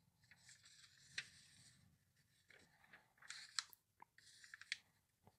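Faint rustling and swishing of glossy catalog pages being turned by hand, with a few soft clicks of paper.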